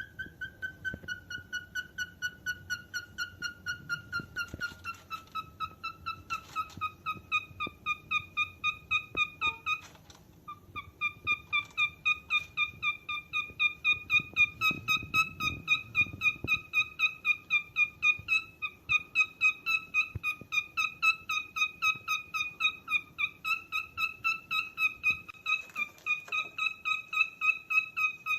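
Cockatiel calling: a fast, steady series of short, evenly spaced high notes, about four to five a second, broken by a brief pause about ten seconds in.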